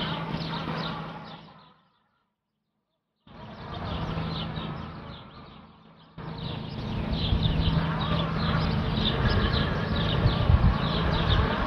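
Toadi robotic lawnmower running while it turns on one spot, a steady low motor hum with a buzz; the robot keeps working the same place instead of moving on. The sound cuts out completely for about a second and a half near the start, fades again, then comes back suddenly about six seconds in.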